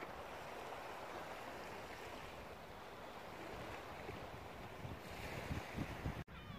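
Steady rushing noise of waves on the shore and wind on the microphone, with a few low buffeting gusts near the end before the sound cuts off suddenly.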